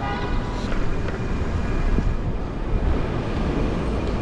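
Wind buffeting the microphone and road noise while riding an e-bike through city traffic. A short pitched tone sounds right at the start.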